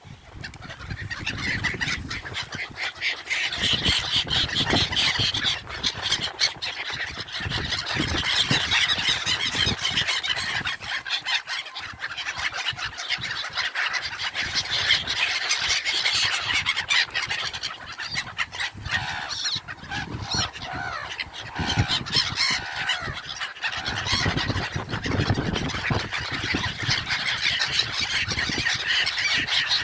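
A flock of gulls calling over and over, many high cries overlapping, as they crowd in to be fed bread.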